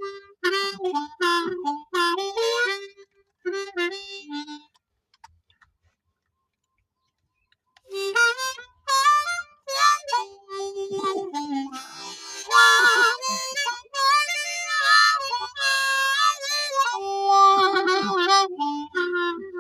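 Harmonica playing a melody in short phrases, breaking off for about three seconds near the middle, then resuming with fuller chords.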